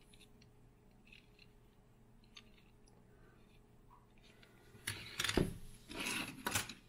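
Die-cast Matchbox toy cars being handled: faint clicks as a car is turned in the fingers, then a louder rustling clatter about five seconds in as it is put down and another is taken from a pile.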